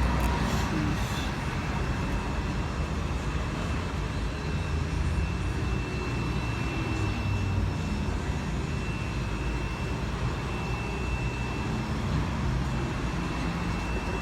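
Kubota combine harvester's diesel engine running steadily, a low rumble with a thin steady high whine over it.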